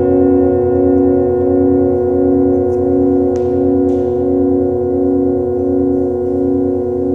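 Metal singing bowls ringing on after being struck, several sustained tones sounding together with a slow, even pulsing waver. Two faint clicks come about halfway through.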